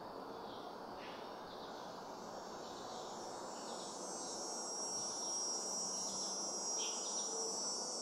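Outdoor insects buzzing in a high, steady drone that comes in about two seconds in and grows louder, over a low bed of background noise, with scattered faint short chirps.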